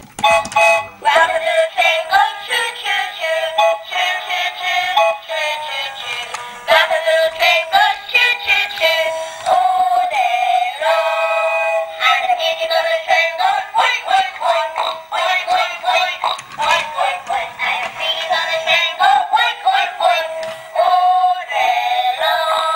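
Thin, tinny music with a high, synthetic-sounding sung melody and no bass, playing without a break.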